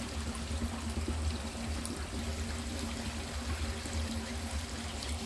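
Watery clay slurry pouring and trickling steadily through a sieve as the soil is washed to strain out sand and coarse grit, over a steady low hum.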